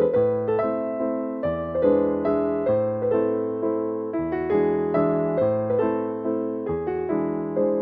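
Background piano music: a gentle run of notes, each struck and then fading away.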